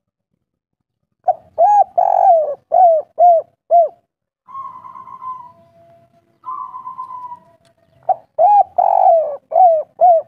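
Spotted dove singing its 'kuk 3' cooing song. Starting about a second in, a phrase of about six short arched coos, then two softer drawn-out purring notes, then a second phrase of coos near the end.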